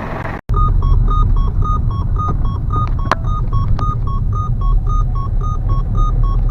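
Jeep KJ's 2.8 turbodiesel idling with a steady low rumble. Over it runs a continuous two-note electronic beeping that alternates several times a second, and two sharp clicks come about three seconds in.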